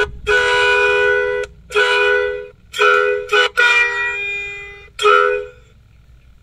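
Electric 'basuri' melody truck horn playing a tune as a series of about six toots of varying length, mostly two notes sounding together, with a pitch change in one longer note near the middle. The horn stops close to a second before the end.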